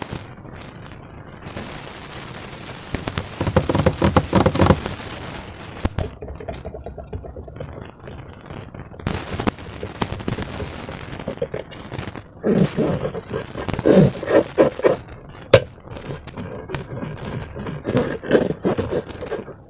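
Slime being squished and worked by hand, with bursts of sticky crackling and clicking.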